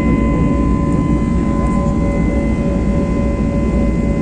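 Aeroplane engines running steadily during take-off or climb: a loud, even rumble with several constant whining tones over it.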